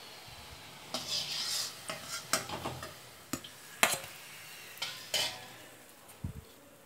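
Steel spatula and steel plate clinking and tapping against each other and the kadai as fried pieces are lifted out of the oil, about eight separate knocks, with faint sizzling of the hot oil.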